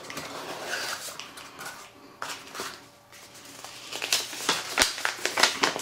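A small cardboard box being opened by hand and a folded paper instruction sheet pulled out and unfolded: scraping and rustling of cardboard and paper, with a run of sharp paper crackles near the end.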